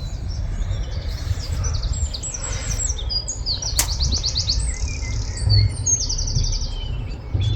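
Songbirds singing, with rapid trills of quickly repeated high notes between about one and six seconds in. A steady low rumble runs underneath, and there is one sharp click about four seconds in.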